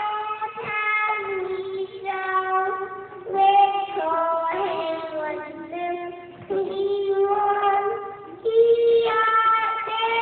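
A three-year-old girl singing, holding long notes phrase after phrase with short breaks between them.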